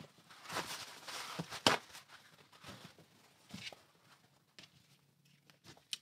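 Small objects being handled on a workbench: rustling and clatter with one sharp click about a second and a half in, then a few lighter taps.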